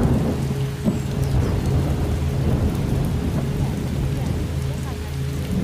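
A roll of thunder over steady rain, with a low drone of steady held tones underneath. The rumble is loudest at the very start and dies away near the end.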